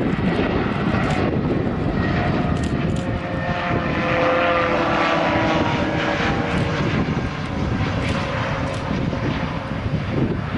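Airbus A320neo passing on its landing with the ram air turbine deployed, giving a very weird noise: a set of steady tones over the engine and air noise, loudest about four to six seconds in and then fading. Wind rumbles on the microphone.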